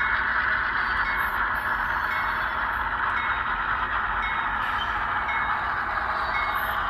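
HO-scale ES44AC model's ESU sound decoder playing diesel locomotive engine sound through its small Bowser speaker, steady as the model rolls along the track; the small speaker gives it a thin, mid-pitched sound with little bass.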